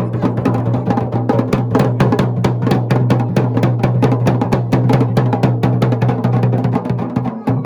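Dhol and damau drums played together in a fast, driving rhythm of sharp strokes, over a steady low hum.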